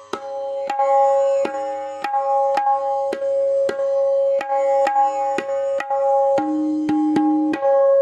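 A freshly repaired tabla tuned to C# being played, about two strokes a second, the right-hand drum ringing clearly on its pitch between strokes. Near the end a few strokes bring in a lower ringing tone from the bass drum.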